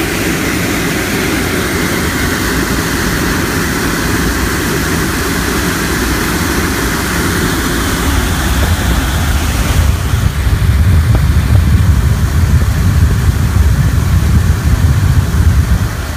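Aircraft ground air-conditioning unit running, blowing a steady rush of conditioned air out of its duct hose. About ten seconds in, a louder, fluttering low rumble of air buffets the microphone held at the hose mouth, easing off near the end.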